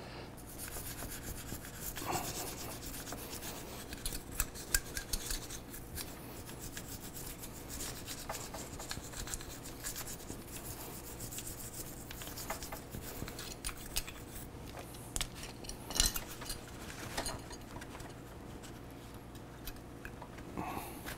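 A small brush scrubbing the exposed side of a motorcycle brake caliper piston: a quiet, continuous scratchy rubbing made of many short strokes. This is cleaning dirt off a piston that has been pushed out so it can slide back in cleanly. Near the end a cloth wipes the caliper.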